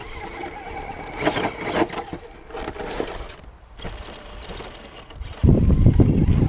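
Axial SCX10 RC crawler's electric motor and geared drivetrain whining as the truck crawls, with a cluster of clicks and crunches about a second in. Near the end, wind suddenly buffets the microphone with a loud low rumble.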